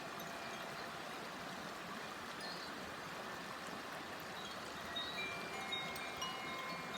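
Koshi chime (a bamboo wind chime with tuned metal rods inside) ringing in light, scattered notes, more of them in the second half, over the steady rush of a babbling river.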